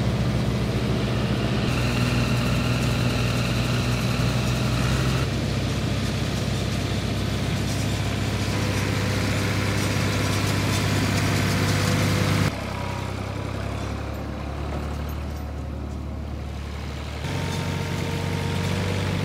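Classic Ford 4000 tractor's three-cylinder engine running steadily while baling. The sound is cut together from several shots, and the engine note and loudness change suddenly at each cut, about four times.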